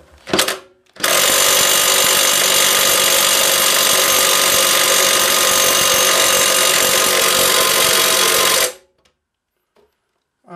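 Cordless impact driver hammering on a rusted lawnmower blade bolt: a short blip, then a steady run of hammering for about seven and a half seconds that stops abruptly. The bolt does not break loose, so penetrating oil is needed.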